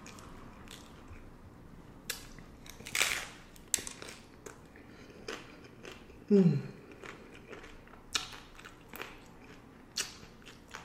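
Crunchy hard-shell beef taco being bitten and chewed, with crisp crunches and clicks at irregular intervals. About six seconds in there is a short falling vocal sound from the eater.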